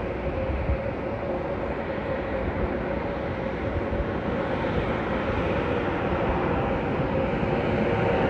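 Bombardier CRJ regional jet's twin rear-mounted turbofans at takeoff power, heard at a distance as a steady jet rumble with a faint hum of fan tones, slowly growing louder.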